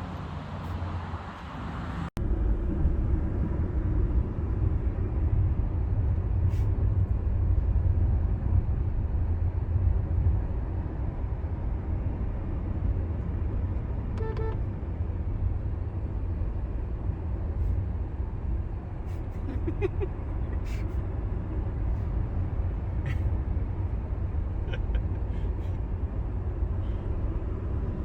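Steady low rumble of a car in motion, with a few faint clicks and a short beep about halfway through.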